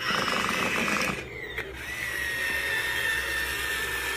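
Small electric motor and plastic gears of a remote-control transforming Batmobile robot toy running as it unfolds from car to standing robot. A fast rattling gear grind lasts about a second, then gives way to a steady high whine.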